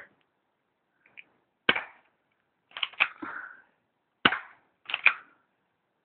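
Smith & Wesson 1911 airsoft pistol shooting BBs: four sharp cracks about a second apart, two of them coming as quick double clicks.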